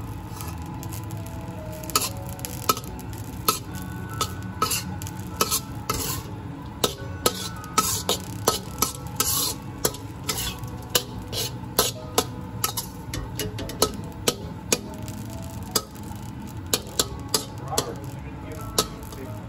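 Metal spatula scraping and clacking against a metal wok as ground pork is stir-fried, with a steady sizzle underneath. The sharp scrapes come irregularly, several a second.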